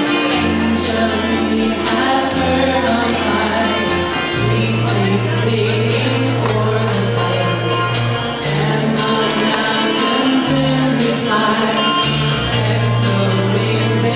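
A small live band plays a Christmas song with electric and acoustic guitars, keyboard and a drum kit keeping a steady beat, with voices singing. Held bass notes change every few seconds.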